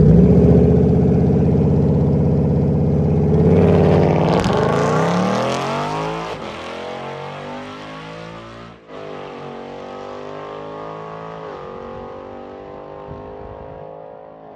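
Ford Mustang engine and exhaust held at a steady high pitch on the drag strip starting line for about four seconds. It then launches and accelerates away down the track, the pitch climbing and dropping back at each of about three gear shifts as it fades into the distance.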